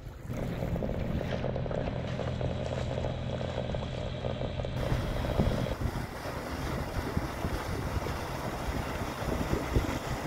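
A boat's motor running at a steady pitch for about the first five and a half seconds, over wind and water noise. After that the engine hum drops away, leaving wind on the microphone and choppy water.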